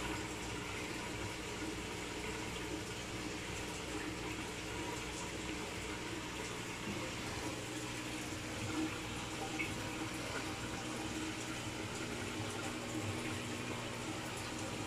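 Aquarium filtration water running steadily, with a constant low hum.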